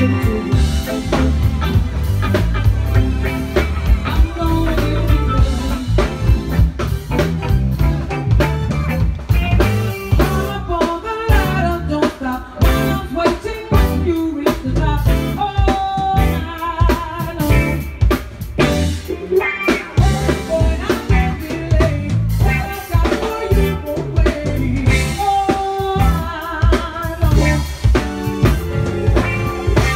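Live band playing: electric guitar, bass guitar, keyboard and drum kit, with singing.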